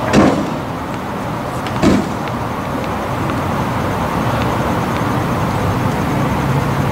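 Steady background rumble of road traffic, with two sharp tennis-ball knocks about a second and a half apart near the start and a low steady hum joining about four seconds in.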